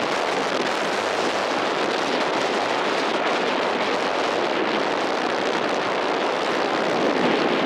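Strong wind rushing in a steady, loud roar that cuts off abruptly near the end.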